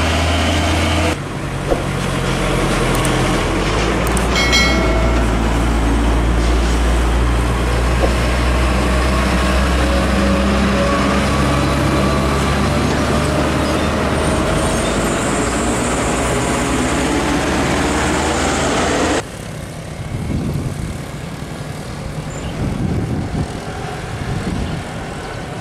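Heavy diesel container trucks on a road: a deep steady engine drone with tyre and road noise as the trucks pass. The sound changes abruptly about a second in and again near the end, where it turns quieter. There is a brief high squeal about four seconds in.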